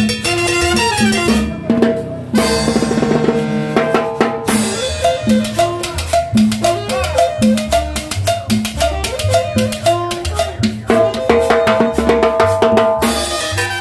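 Live tropical dance band playing: upright bass and drum kit with cymbal and snare keep a steady beat under saxophone and trumpet lines, with a metal güiro scraping. A horn holds one long note near the end.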